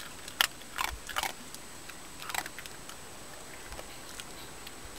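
A Cairn Terrier crunching small pieces of dry kibble taken from a hand: four short crunches in the first half, then only a faint hiss.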